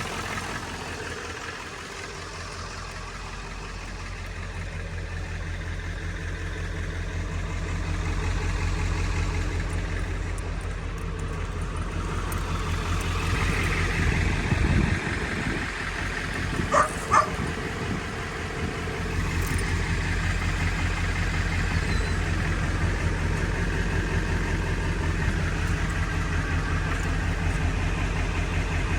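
Vehicle engine running with a steady low hum. Two short, sharp high sounds come about halfway through.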